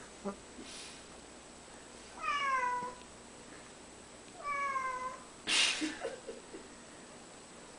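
Bengal cat meowing twice, about two seconds apart, each meow drawn out and falling in pitch. A short burst of rustling noise, the loudest sound, comes just after the second meow.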